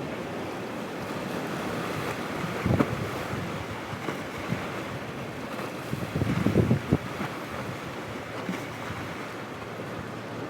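Wind buffeting the microphone over the steady wash of sea surf, with stronger gusts about a quarter of the way in and again just past halfway.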